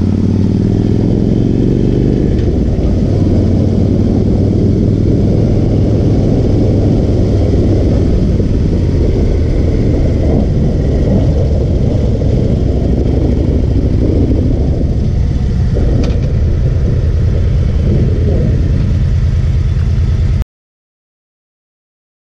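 Harley-Davidson Street Glide's V-twin engine running under way, heard close to the engine, its pitch rising over the first couple of seconds as it accelerates, then holding steady. The sound cuts off suddenly about two seconds before the end.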